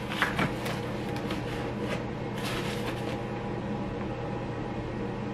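Cardboard box and white packing material rustling and scraping as they are handled during unpacking, over a steady low hum.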